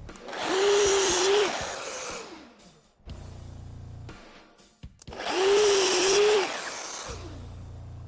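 A sliding miter saw making two crosscuts through a board, about four and a half seconds apart. Each time the motor whines up to speed, the blade cuts through the wood, and the motor spins down with a falling whine. A low steady hum fills the gaps between the cuts.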